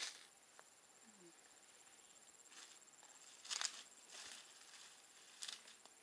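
A few scattered crunching, rustling footsteps through dry leaves and brush, the loudest a little past halfway, over a faint, steady high insect trill.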